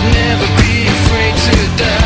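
Loud rock music with a steady drum beat and cymbals.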